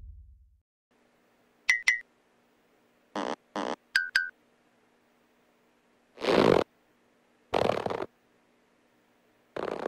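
Cartoon sound effects: a low rumble fades out at the start, then come a pair of sharp clicks, two short hissy bursts, another pair of clicks, and two longer noisy bursts a little over a second apart, over a faint steady hum.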